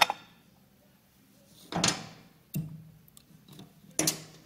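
Metal clunks and knocks as a cast cover is seated onto a Monarch 10EE lathe apron and handled: a sharp click at the start, then three separate knocks, about two seconds in, a moment later, and near the end.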